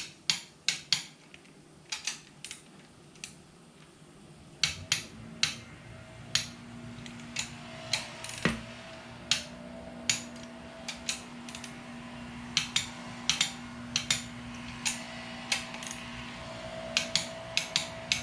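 Ratcheting torque wrench working bolts: a run of sharp, irregular metallic clicks. A steady low hum comes in about four and a half seconds in.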